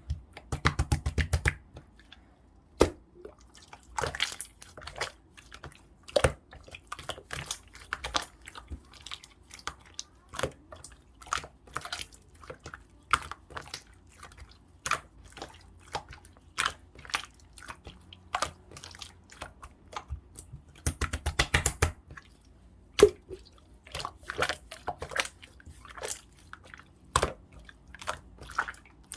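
Clear, colourless slime being squeezed, poked and stretched by hand, giving wet sticky clicks and pops, with two quick runs of crackling about a second in and around twenty seconds in.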